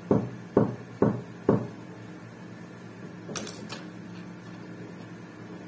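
Soft knocks at a steady pace of about two a second, stopping about a second and a half in, then a short, sharp clicking a little after three seconds in, over a low steady hum.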